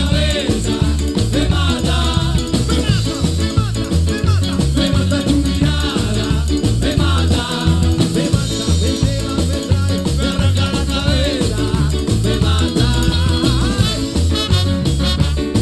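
A live cuarteto band playing, with a steady bass beat under keyboard and brass, and a singer on microphone.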